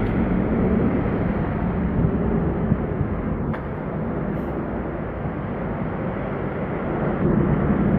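Steady rumble of street traffic, a little louder near the start and end.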